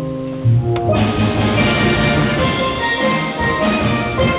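Steel band (steel pans) playing: held chords for about the first second, then the full ensemble comes in with quick repeated notes over a low bass line.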